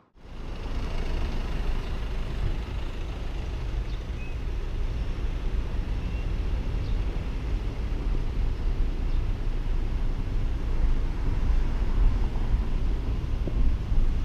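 Steady low road noise of a car driving along town streets, mostly tyre and engine rumble, coming in just after a brief silence at the start.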